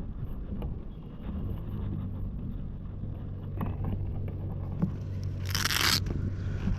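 Wind rumbling steadily on the microphone, with a few light clicks of folding-kayak parts being handled. About five and a half seconds in, a loud half-second ripping hiss: a Velcro strap being pulled open.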